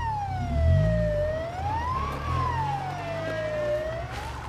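Police car siren wailing, its pitch sliding slowly up and down about once every two and a half seconds. It is a faulty siren that won't switch off and goes on as soon as the car is started.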